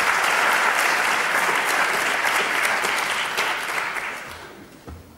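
Audience applauding, the clapping holding steady and then dying away over the last second or two.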